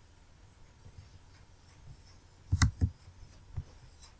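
Two sharp computer mouse clicks about a quarter second apart, then a softer click, over faint room hiss.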